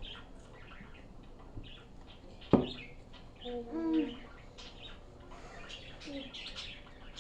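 Small bird chirping over and over in short high calls, with a single sharp click about two and a half seconds in and a brief pitched sound near four seconds.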